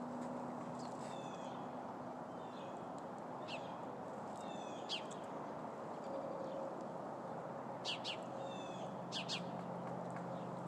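Sparrows chirping: short, sharp, high calls every second or two, over a steady low background hum.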